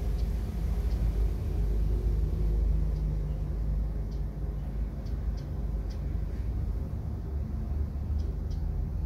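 A steady low rumble, with a few faint, very short high chirps or ticks scattered through it.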